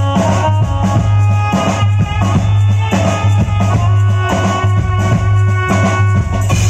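A live band playing amplified instrumental music through a PA system: electronic keyboards holding a melody over a drum kit, with a heavy, steady bass.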